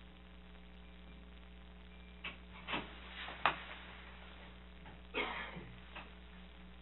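Steady low electrical hum in a small quiet room, with a few short clicks about two to three and a half seconds in and a brief rustle about five seconds in as a seated man shifts and leans back in his chair.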